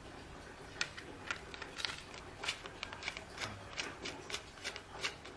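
Irregular light clicks and rubbing from hands gripping and turning a carbon tegek fishing pole up close.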